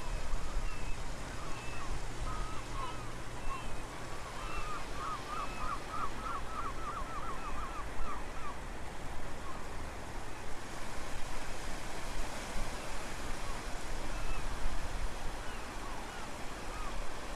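Steady rush of sea water, with short high chirping calls over it, including a quick run of about eight rising chirps in the middle.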